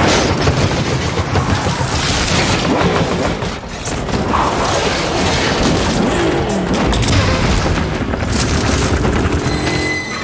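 Action-film sound mix of a car speeding along railway tracks on its wheels: loud, dense noise with repeated booming impacts and metal scraping on the rails. A few steady high tones come in near the end.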